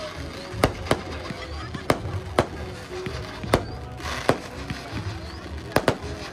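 Fireworks going off: about eight sharp bangs at irregular intervals, two of them close together near the end, over a background of music and voices.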